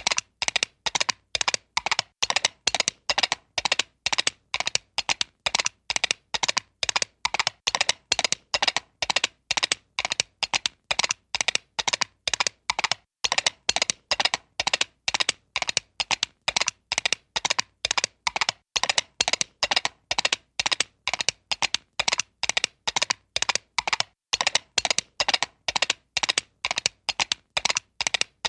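Comic horse-hoof gallop sound effect: an even, unbroken run of sharp clip-clop knocks, a few a second.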